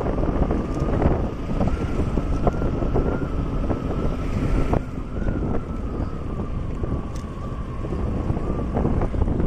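Wind buffeting the microphone of a moving motorcycle, with the bike running underneath and a steady high tone that wavers slightly throughout.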